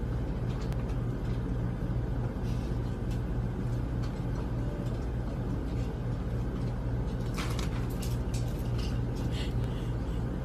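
A steady low drone, unchanging in pitch, with a faint hiss over it and a few faint clicks.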